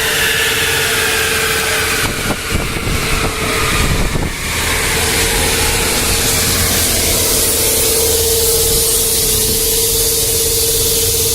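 2010 Camaro SS's 6.2-litre V8 with long-tube headers, cold-air intake and aftermarket exhaust idling loudly, with a steady hum alongside.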